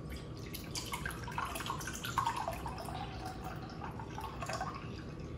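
Liquid pouring in a thin stream from a plastic bottle into a glass measuring cup already partly full: irregular trickling and dripping, with small splashes into the liquid.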